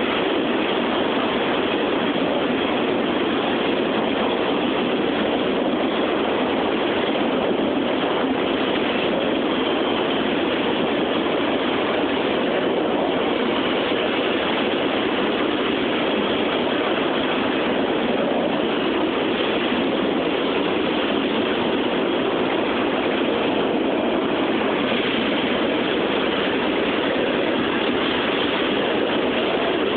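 CSX freight train's cars rolling slowly past on the rails: a steady, even rolling noise.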